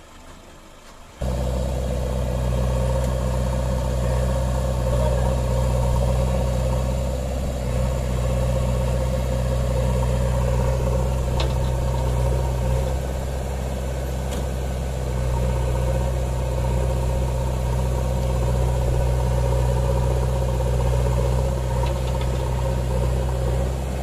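JCB 3DX backhoe loader's diesel engine idling steadily. It comes in abruptly about a second in.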